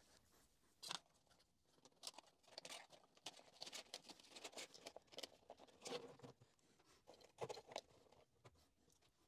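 Faint handling noises: irregular light clicks and crinkly rustles as a pleated way cover is pressed into place on a milling machine's column.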